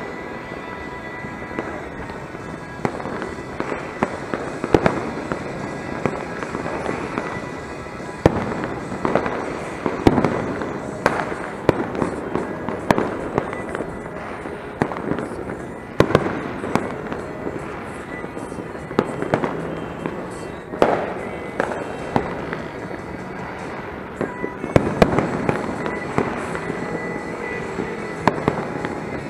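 Firecrackers and fireworks going off without pause, a dense irregular crackle of pops and bangs near and far, with a few louder bangs standing out.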